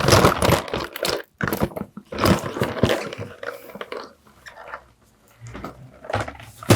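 Hands rummaging among loose screws and small parts: irregular rattling, scraping and clattering, with a sharp click near the end.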